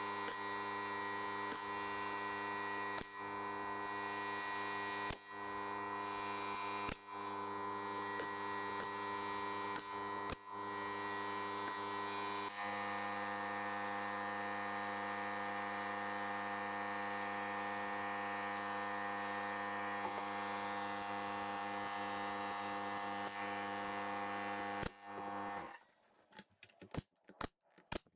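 Pneumatic brad nailer firing about six sharp shots in the first ten seconds, driving nails through pine trim into the table top, over a steady hum. The hum stops near the end, followed by a few clicks.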